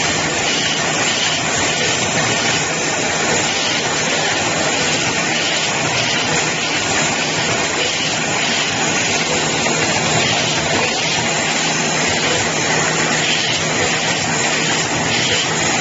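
Automatic flowpack cartoning machine running, a steady, dense mechanical noise with a faint low hum underneath.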